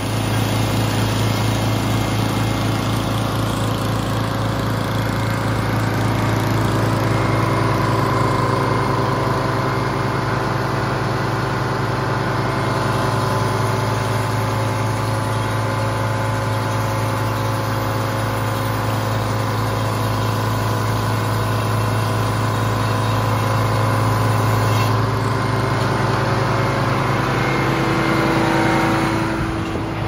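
Frick circular sawmill running, engine-driven, with a steady low hum and higher steady tones that shift slightly near the end.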